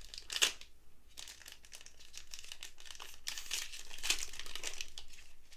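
Foil wrapper of a football trading card pack crinkling and tearing as it is pulled open by hand, in an irregular crackle with a sharp rip about half a second in; the wrapper is coming apart as it opens.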